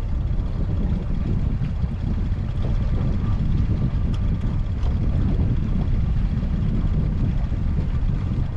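Steady low rumble of wind buffeting the microphone aboard a fishing boat, with no clear engine note.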